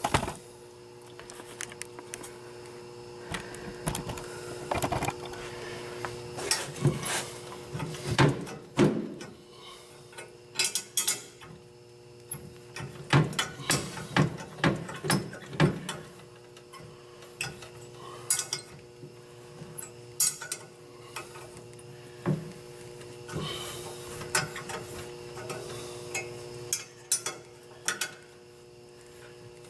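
Wrench on a nut welded onto a broken-off stainless bolt in an exhaust manifold, worked back and forth to free the seized bolt: irregular metal clicks and clanks, in clusters, over a steady hum.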